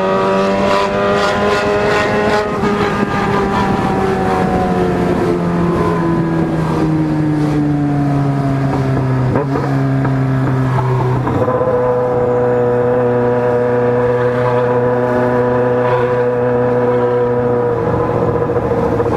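Yamaha XJ6 motorcycle's inline-four engine running under way, its pitch sinking slowly for several seconds, then jumping up about halfway through and holding steady before dropping again near the end.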